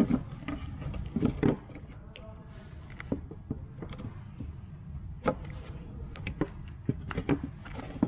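White flat-pack desk panels knocking and creaking against each other as a side panel is pressed down onto the bottom board's dowels. The irregular knocks and taps are loudest near the start and again about five and seven seconds in, over a low steady hum.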